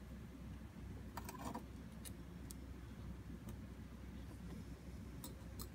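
Faint, scattered light clicks of fine steel tweezers touching a ring and its small gold prong wires as the prongs are positioned, a little cluster about a second in and single clicks after. A low steady hum sits underneath.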